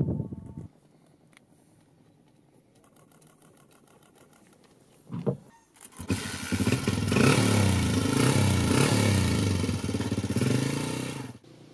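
A small motorcycle engine starting: a short burst about five seconds in, then about a second later the engine catches and runs, revving up and down, before cutting off suddenly near the end.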